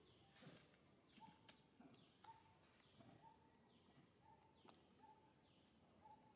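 Faint outdoor ambience with birds calling: a short mid-pitched note repeated about twice a second, a few faint high chirps falling in pitch, and a couple of light clicks.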